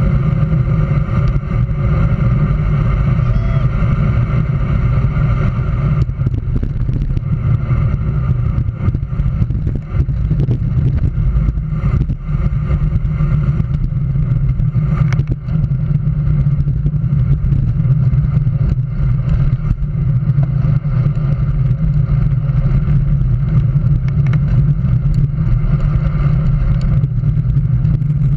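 Wind rushing over a handlebar-mounted camera's microphone, with road rumble from a road bike riding at speed: a loud, steady, deep rumble throughout.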